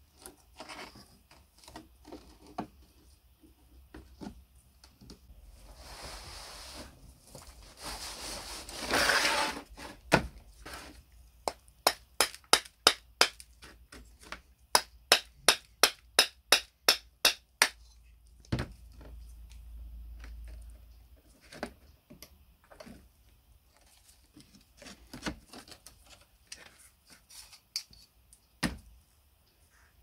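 Rusty end cap of an old door closer struck with a hammer: a run of sharp, evenly spaced strikes, about three a second, in two bursts mid-way. Before them comes a rough scraping sound, and around them the clinks and knocks of greasy spring and piston parts being handled.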